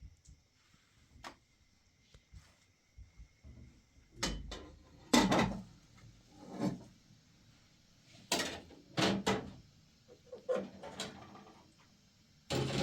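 A series of about eight irregular knocks and clunks, like wooden doors or drawers being handled, most of them from about four seconds in.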